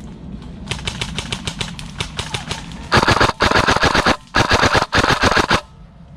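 Airsoft guns firing in full-auto bursts: a rapid string of shots, fainter strings through the first half, then four loud close bursts of about half a second each in the second half.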